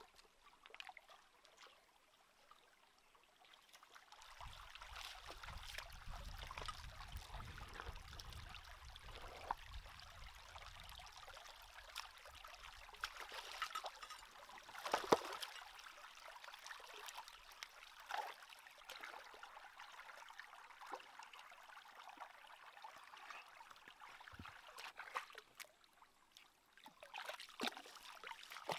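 Shallow stream trickling over rocks, with scattered splashes and knocks as rocks are lifted and moved in the water, the loudest about halfway through. A low rumble runs for several seconds near the start.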